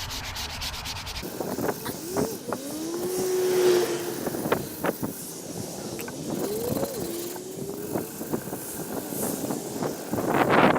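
Sandpaper rubbing on a wooden cigar box guitar neck stops about a second in. Then come vehicle engines, twice rising in pitch and levelling off, the first swelling louder, with scattered clicks and knocks.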